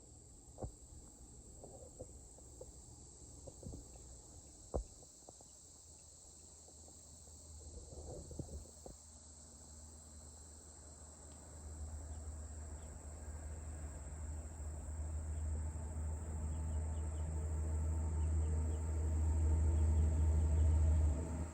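Insects, crickets or similar, making a steady high chirring throughout. A few sharp clicks come in the first few seconds. A low rumble builds through the second half to become the loudest sound, then stops suddenly at the end.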